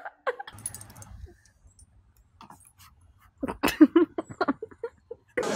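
Short bursts of human voice with a quiet stretch of about two seconds between them. In the second half comes a louder run of quick, pulsed vocal sounds.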